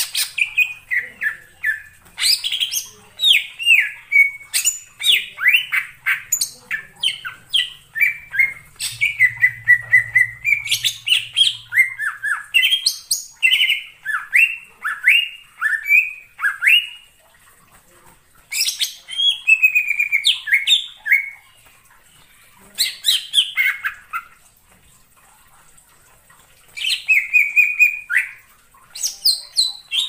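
Green leafbird (cucak ijo) singing: quick runs of sharp, falling whistled notes, several a second, in phrases of a few seconds with short pauses between them.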